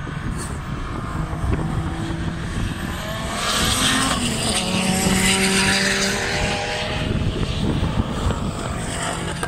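Ford Escort Mk2 race car passing at speed on the circuit. The engine note builds to a loud pass about three to four seconds in, then falls in pitch as the car goes away, with other cars running more faintly before and after.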